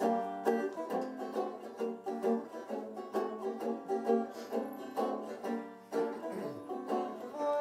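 Instrumental music on plucked strings, quick picked notes in a steady rhythm with no singing.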